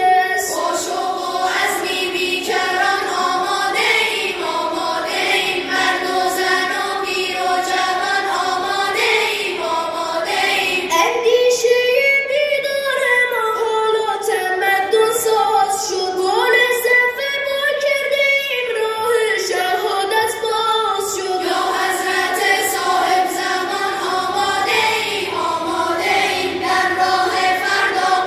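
A boys' choir singing a Persian devotional anthem (sorood), one continuous melodic passage.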